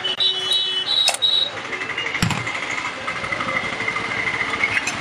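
Roadside traffic noise with a single knock about two seconds in, a few short high whistling tones at the start, and a thin high steady tone through the middle.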